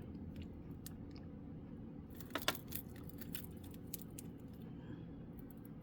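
Sterling silver bracelets clinking faintly as they are handled, with scattered light clicks and a couple of sharper metal clicks about two and a half seconds in.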